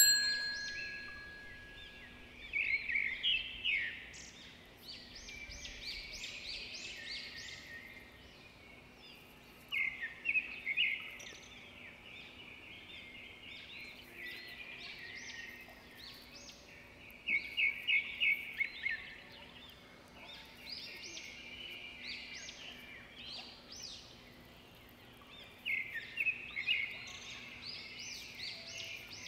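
Small birds chirping and twittering in short bursts of a second or two, several times over, above a faint steady low hum.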